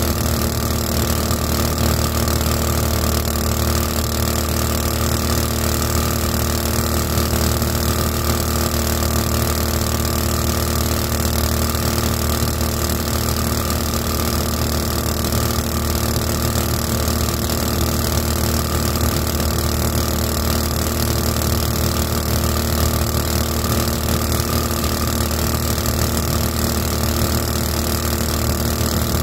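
Boat's "224" small engine turning a 7-inch two-blade prop, running steadily at cruising speed, with a constant hiss over it. The engine note holds the same pitch throughout, with no revving up or down.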